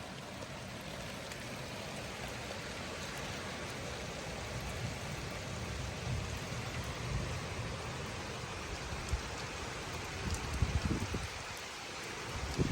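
Steady rain falling and pattering, with a few sharper drop ticks and low rumbling swells in the second half.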